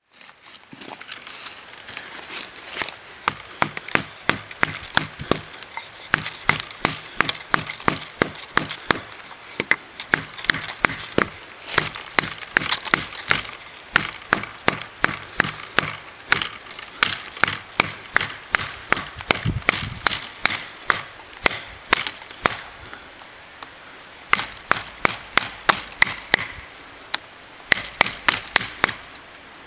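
Neck knife blade working into dry wood: a long series of sharp cracking and chopping strokes, about two or three a second, with a couple of short pauses.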